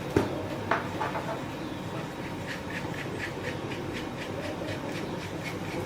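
A 3D-printed plastic screw being fitted and turned into its printed part: a couple of sharp plastic knocks in the first second, then a steady run of light clicks, about four a second, as the threads turn.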